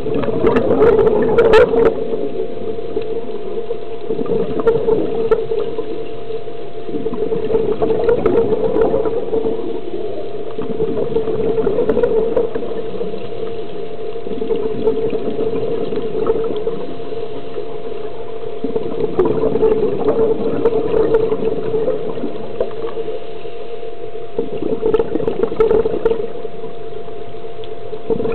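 Scuba regulator breathing heard underwater through a camera housing: a bubbly rush of exhaled air about every four seconds. Under it runs a steady low hum with a faint constant tone.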